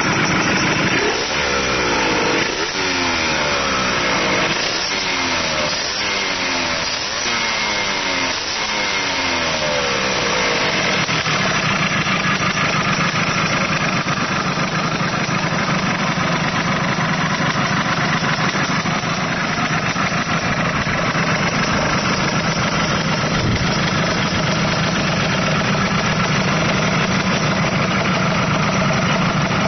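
Small Yamaha YSR50-type two-stroke single-cylinder engine being blipped about six times in quick succession over the first ten seconds, the revs dropping back after each, then settling into a steady idle.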